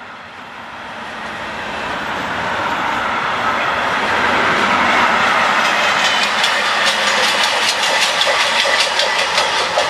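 Container freight train rolling past, its wheel noise growing louder over the first few seconds. In the second half it turns into a rapid, even clickety-clack of the wagons' wheels on the rails.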